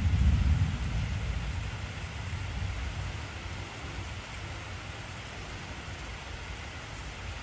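Steady heavy rainfall with a deep rumble of thunder at the start, fading away over the first three or four seconds.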